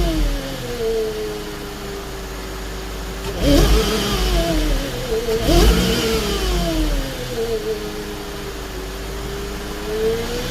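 Mercedes M271 supercharged four-cylinder engine with an Eaton M65 supercharger, revved with two quick blips about three and a half and five and a half seconds in, the pitch sinking slowly back between them and rising again near the end. The supercharger whine rises and falls with the revs.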